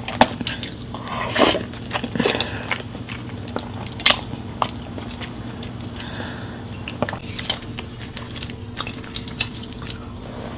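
Close-miked eating of creamy pasta: irregular wet mouth smacks, slurps and chewing clicks over a steady low hum.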